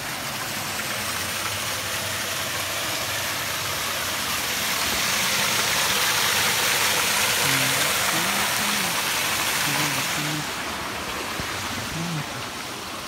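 Water rushing and splashing through a wooden channel and over rocks, as a steady rush that swells for a few seconds in the middle and then eases.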